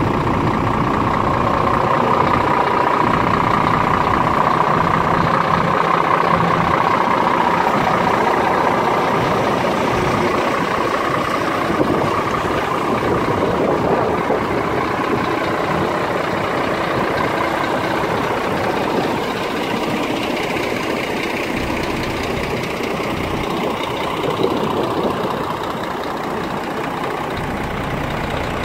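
Scania P410 truck's six-cylinder diesel engine idling steadily.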